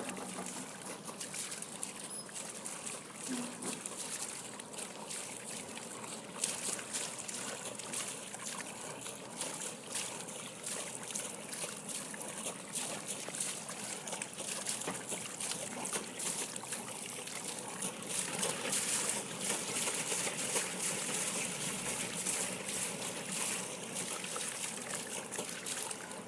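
Water splashing and trickling, a continuous crackly hiss that grows somewhat louder in the last third.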